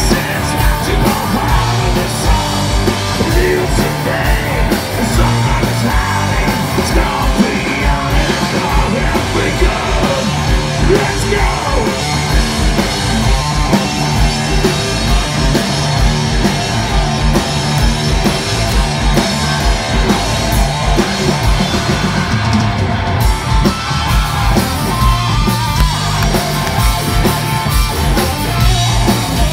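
Stoner-metal band playing live at full volume: distorted electric guitars, bass and drums, with yelled vocals.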